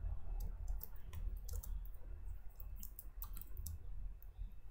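Typing on a computer keyboard: a run of irregular key clicks, including the space and enter keys, over a low steady hum.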